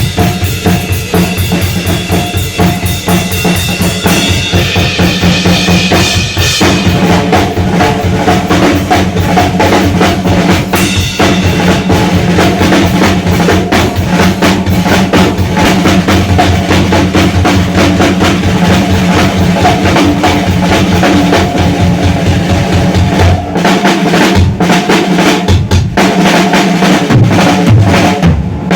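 Rock drum kit played solo, live: a dense, rapid stream of bass drum, snare and tom strokes. The bass drum drops out for a few seconds near the end, then comes back in.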